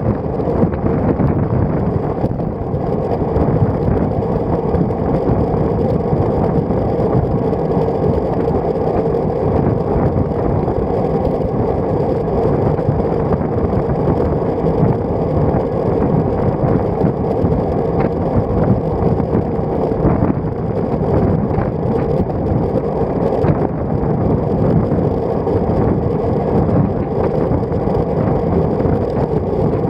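Steady wind and road noise picked up by an action camera on a road bike's stem while riding: a continuous rumbling rush of air over the microphone and tyres on the road.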